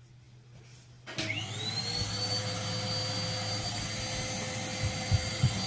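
Henry tub vacuum cleaner switched on about a second in. Its motor spins up with a rising whine, then runs steadily. A few soft bumps are heard near the end.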